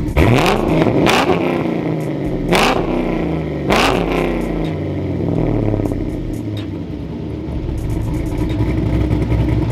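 Cammed LS1 5.7 V8 with LS2 heads and a BTR camshaft, in a Mazda RX-7 FC, blipped about four times in quick succession. It then settles back to a choppy, lopey idle, heard low near the exhaust.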